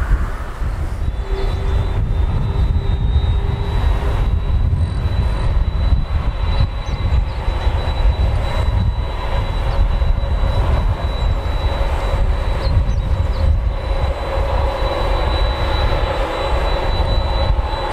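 Boeing 767-300's twin turbofan jet engines running at taxi power: a steady whine with a thin high tone over a low rumble, the whine growing stronger in the last few seconds.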